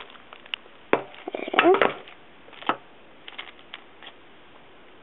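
Scattered knocks and taps from handling the boxed iPod Touch as it comes out of a plastic bag, with a short pitched sound mixed in about a second and a half in.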